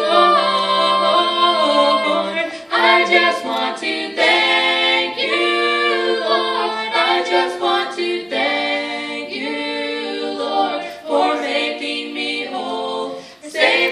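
Trio of voices, a young man and two young women, singing a gospel song a cappella in harmony into handheld microphones.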